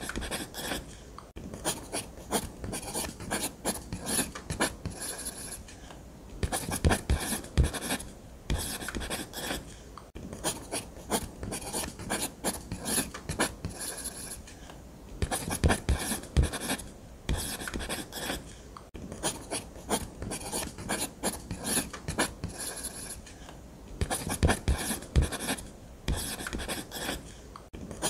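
Drawing strokes scratching on paper: runs of quick, short strokes broken by brief pauses every few seconds, as in freehand drawing or shading.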